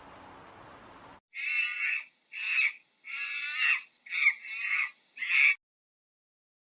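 A bird giving a run of about six short calls in quick succession, each under a second, that stops abruptly. Before it, a faint steady hiss cuts off suddenly.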